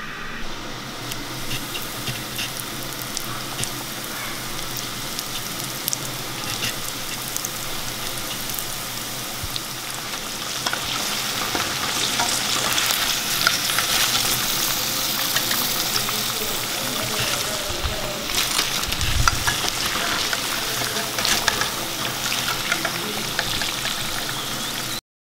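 Breadcrumb-coated sausages deep-frying in hot oil in a kadai: a steady crackling sizzle that grows louder about ten seconds in, with scattered clinks of a metal skimmer against the pan.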